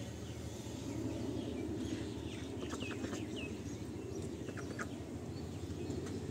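Ducks giving a few short calls and quacks, a couple of high short chirps around the middle and a cluster of short quacks near the end, over a steady low background rumble.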